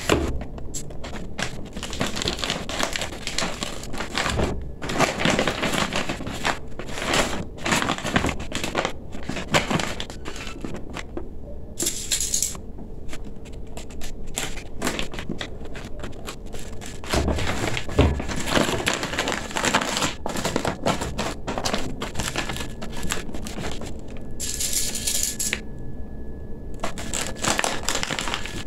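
Stiff gele headtie fabric crinkling and rustling in irregular bursts as it is folded, pleated and tucked by hand.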